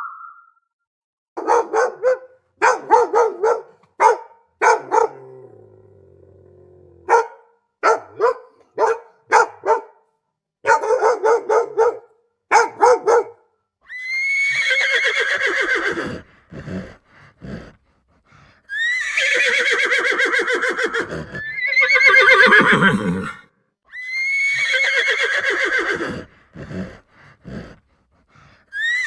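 Horse whinnying: four long, quavering neighs that start high and fall in pitch, in the second half. Before them comes a run of short, sharp repeated calls.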